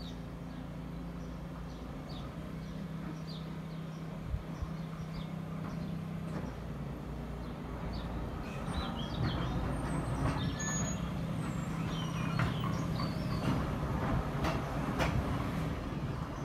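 Seaton Tramway electric tram approaching along the track: a steady low hum that grows louder, with clicks and rattles of wheels on rail in the second half. Birds chirp throughout.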